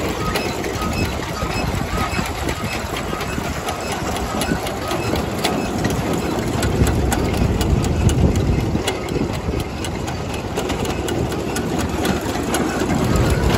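McCormick-Deering threshing machine running empty under belt drive on a test run: a steady mechanical clatter of its shafts, pulleys, chains and shakers, with many small rapid knocks and rattles.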